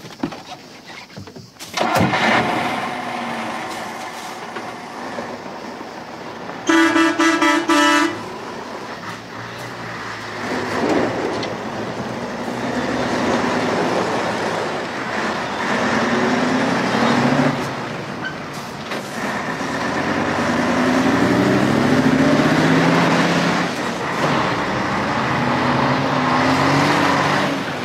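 A truck engine running loud, starting suddenly about two seconds in. A horn sounds once for about a second and a half around seven seconds in. Through the second half the engine note rises in pitch several times, as when the truck accelerates away through its gears.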